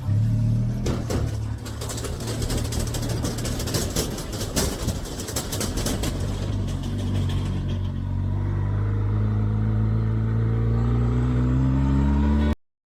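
Motorcycle engine running on the move, with a rushing, crackling noise over the first several seconds; from about eight seconds in the engine pitch rises steadily as it accelerates, then the sound cuts off abruptly.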